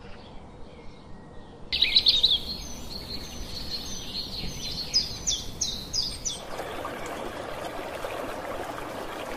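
Birds calling: faint calls at first, then after a sudden cut about two seconds in, loud high chirps and a run of short quick notes. From about six and a half seconds, splashing water joins in under the birds.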